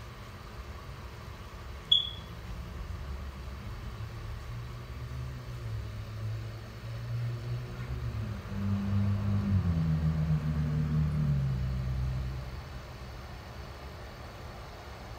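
A low rumble that builds from about four seconds in, is loudest a little past the middle with its pitch stepping down, then fades; a single sharp click about two seconds in.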